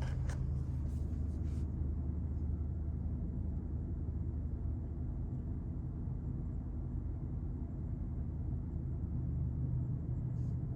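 Car engine idling steadily, a low even hum heard from inside the cabin with the windows up.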